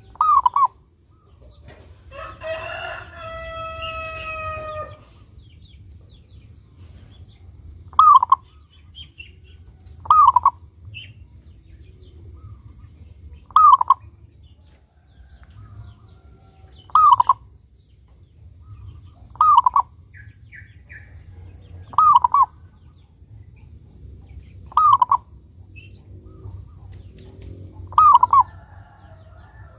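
Zebra dove (perkutut) calling repeatedly, short cooing phrases repeated every few seconds, nine in all. A rooster crows once about two seconds in.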